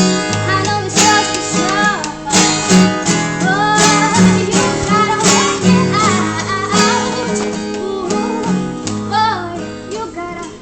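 A voice singing over a strummed acoustic guitar, with steady strokes all through; the music thins out and drops in level near the end.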